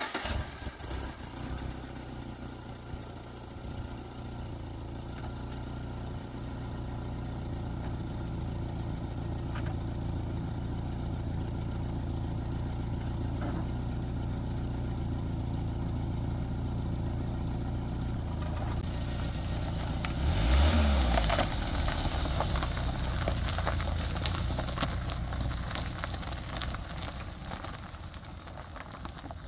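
Peugeot 405 sedan's engine idling steadily just after being started, then revving about two-thirds of the way in as the car pulls away. Its tyres crackle over the dirt track and the sound fades as it drives off.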